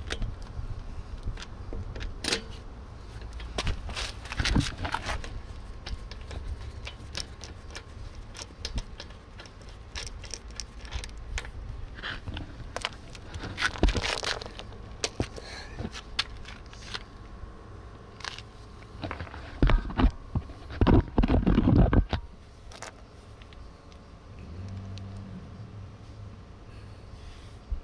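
Metal clinking, scraping and rattling of a wheel wrench, socket and extension bar being worked on a car's wheel bolts as they are unscrewed, with a burst of loud clattering knocks about twenty seconds in.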